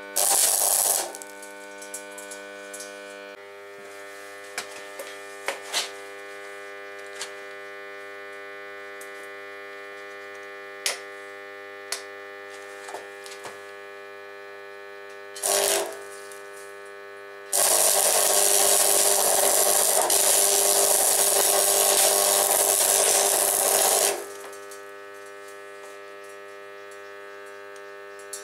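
Stick welder: the transformer hums steadily while the electrode is struck against a steel fitting on a propane bottle. Short arcs flare briefly about a second in and again about halfway, with scattered clicks of the rod tapping. Then an arc holds, crackling, for about six seconds.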